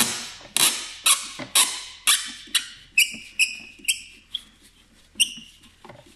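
A Torx fastener in a car's plastic windscreen cowl panel being turned out with a hand tool: sharp clicks about twice a second, then a run of short high squeaks from about three seconds in. The fastener's metal insert is spinning in the panel instead of letting the screw come out.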